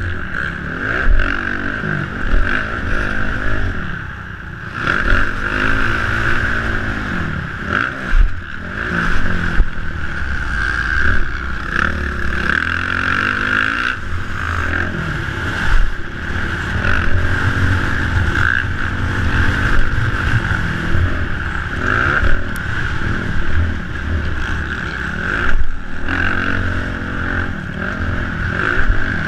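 Motocross bike engine revving up and dropping off again and again as the throttle is opened and closed. It is heard from a helmet-mounted camera, with a steady rushing noise over it and occasional sharp thumps.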